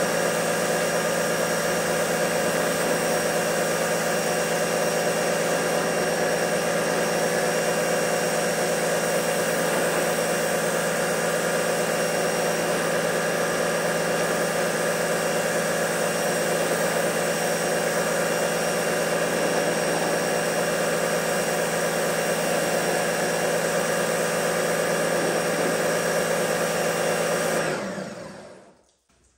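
Pressure washer running steadily, its motor humming under the hiss of the water spray striking the truck's body panels and the wet floor. The sound fades out shortly before the end.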